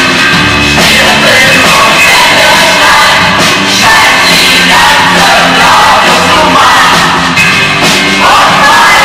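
Loud live rock music with a large ensemble of voices singing together, shouts and cheers mixed in.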